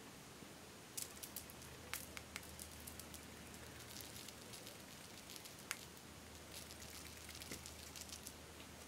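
Glitter shaken from a small glass vial onto a bowl of foam beads and slime add-ins: faint scattered light ticks and a patter of falling flakes, thickest in the second half.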